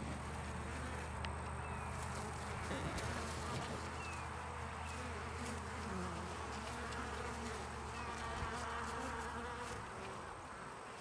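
Honeybees buzzing at a hive entrance: a steady hum of worker bees flying in and out, the sound of a live, active colony bringing in pollen. The hum eases slightly near the end.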